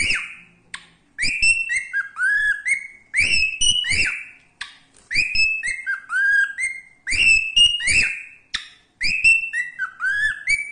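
Cockatiel whistling a tune: short, sliding whistled notes in quick phrases, the same phrase coming back several times.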